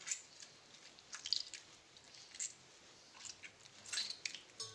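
Wet squelching of warm, stretchy mozzarella curd being squeezed by hand to press the water out, in irregular short squishes.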